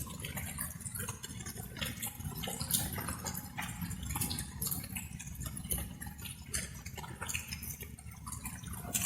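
Light rain: water drops falling and dripping at an irregular pace over a steady low rumble.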